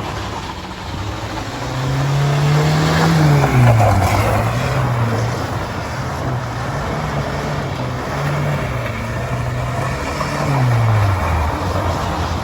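Renault Twingo engine revving up and down under hard driving, its note rising and falling several times with sharp drops about a third of the way in and near the end, over a steady hiss of road and tyre noise.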